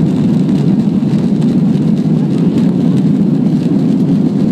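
Boeing 737-800 jet engines at takeoff thrust, together with the rumble of the wheels on the runway during the takeoff roll, heard from inside the cabin as a loud, steady, low roar.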